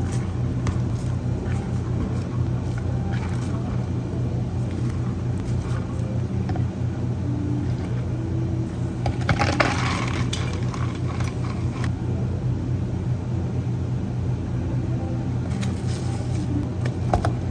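A steady low machine hum, with small scattered clicks and a brief rattling clatter about nine to ten seconds in.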